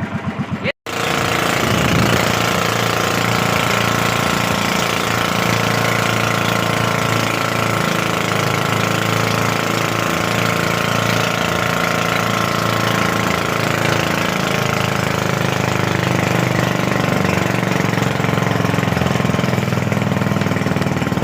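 Small boat engine running steadily, with a sharp momentary dropout about a second in.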